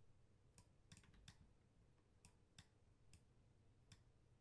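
Near silence with faint computer mouse clicks, about eight, irregularly spaced as vertices are selected and dragged.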